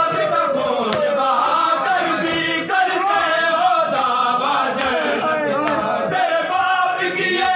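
A crowd of men chanting a mourning lament (nauha) together in many overlapping voices, with scattered slaps of hands beating on chests (matam).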